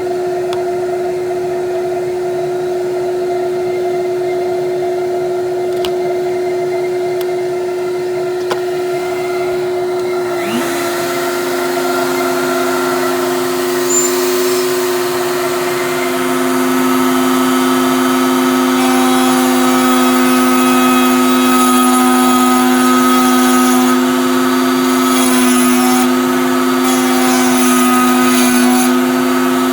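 Router running in a router table alongside a shop vac for dust collection: a steady two-tone motor hum. About ten seconds in the tones shift slightly and a hiss joins in, and the sound grows a little louder a few seconds later.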